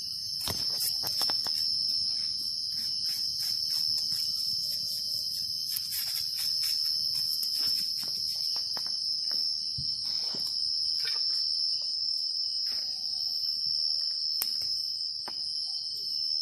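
Steady high-pitched drone of night insects, with scattered sharp crackles from a wood fire.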